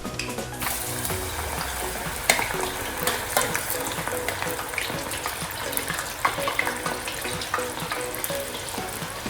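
Plantain slices deep-frying in hot vegetable oil: a dense, steady sizzle full of crackles and scattered pops, setting in sharply about half a second in.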